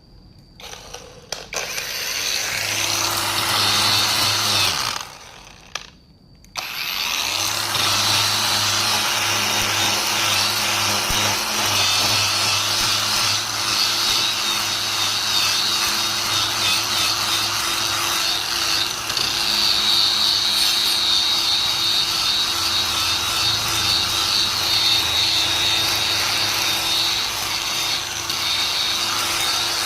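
Rotary power tool spinning a wire brush or abrasive cleaning wheel against metal, a loud scrubbing over a steady motor hum, cleaning the surface for welding. It runs briefly, stops about five seconds in, then starts again and runs steadily.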